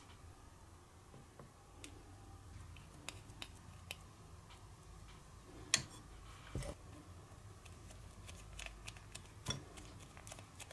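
Small plastic rice paddle and toy rice cooker handled while Konapun candy rice is scooped into a plastic sushi mould: scattered light clicks and taps of plastic on plastic. The sharpest click comes about six seconds in, and another near nine and a half seconds.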